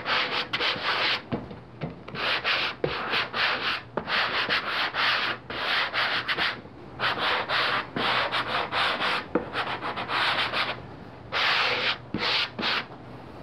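Hand sanding block (120 grit) lightly scuffing the surface of high-density polyethylene (King StarBoard) boards in quick back-and-forth strokes, about two to three a second, with a brief pause near the end before a few last strokes. It is the light scuffing that prepares the plastic for gluing.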